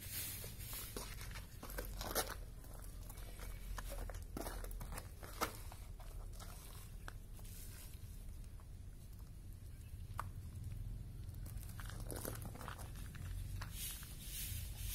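Goat hide being cut and pulled off a hanging carcass: irregular soft tearing and crackling as the skin separates from the flesh, with a couple of sharper clicks about two and five seconds in.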